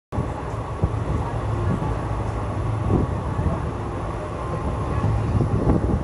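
Moving passenger train heard from on board: a steady low running rumble with a few faint knocks.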